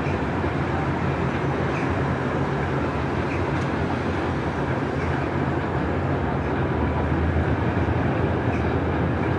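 2TE10U two-section diesel locomotive hauling a freight train, its two-stroke opposed-piston 10D100 diesel engines giving a deep, steady running sound, with faint clicks every second or two. It grows a little louder about two-thirds of the way through.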